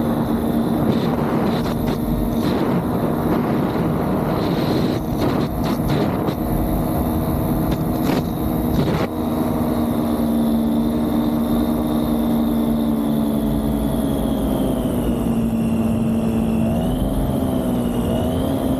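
Vittorazi Cosmos 300 single-cylinder two-stroke paramotor engine and three-blade propeller running steadily at cruise power in flight, with a few whooshes of wind on the microphone in the first half. The engine pitch dips slightly about two-thirds in and wavers near the end.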